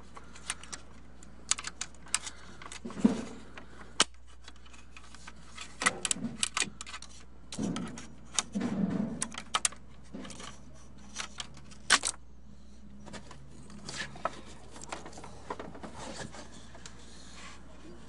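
Irregular light clicks and taps of metal and plastic as a BMW E39 hood latch and its release cable are handled and fitted together, with a few sharper clicks, the loudest about three, four and twelve seconds in.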